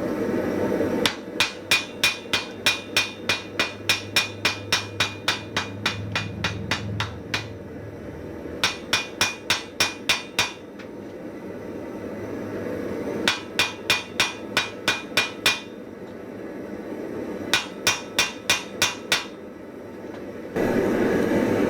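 Blacksmith's hammer striking the faceplate of a hand-forged post anvil in four runs of steady blows, about three a second, while the faceplate is being forge-welded on.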